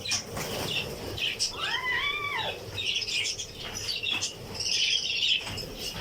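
Small Australian parrots chattering and chirping steadily in high-pitched bursts, with one clearer call about two seconds in that rises and falls in pitch.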